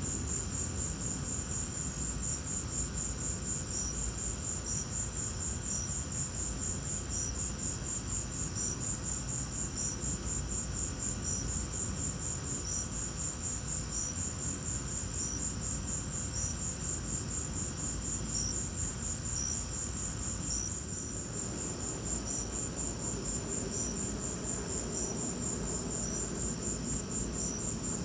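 Crickets trilling steadily at night in a high, rapidly pulsing chorus, with a second, slightly lower chirp repeating about once a second. A low, steady rumbling noise runs underneath.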